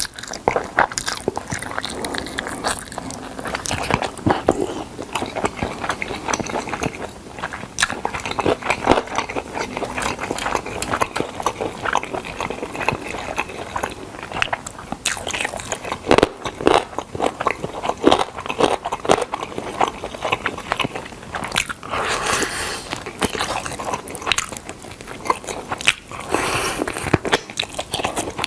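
Close-miked eating of smoked chicken: biting and chewing, with a dense run of small wet clicks and crackles.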